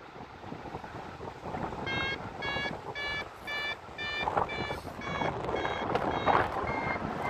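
Flight variometer beeping about twice a second, the climb tone that signals the glider is rising in lift. Wind rushes past the microphone throughout, and its swells are the loudest sound.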